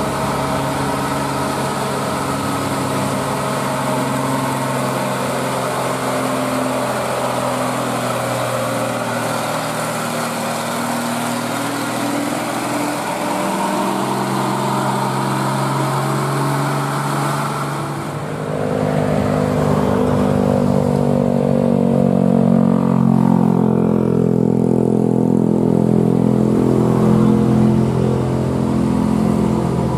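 Old Mitsubishi Fuso truck's diesel engine working hard uphill as it passes. About 18 seconds in, a second heavy truck's diesel, a Hino, takes over and grows louder as it climbs, its pitch sagging under load and then rising again.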